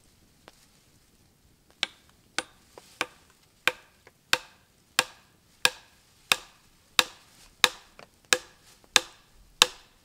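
Axe striking a log in a steady rhythm. About a dozen sharp wooden knocks, roughly one every two-thirds of a second, start about two seconds in.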